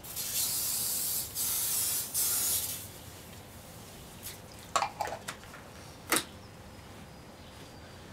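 Aerosol spray can hissing in three short bursts as cleaner is sprayed onto the car's body panel, followed a couple of seconds later by a few sharp clicks and knocks.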